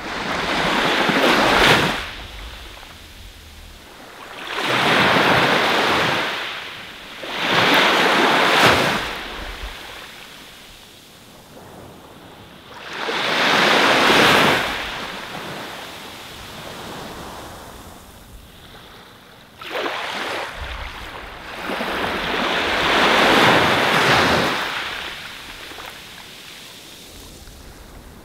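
Ocean waves breaking and washing onto a shore: about five surges of surf, each swelling and fading over a couple of seconds, with quieter lulls between them.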